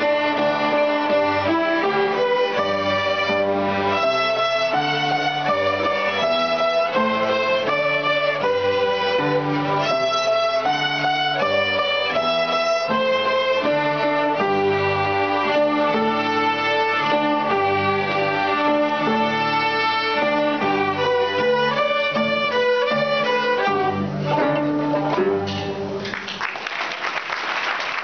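A children's violin ensemble plays a piece of bowed-string music in a steady rhythm, the tune moving note by note over repeated low notes. The music ends about 25 seconds in, and the audience's applause starts.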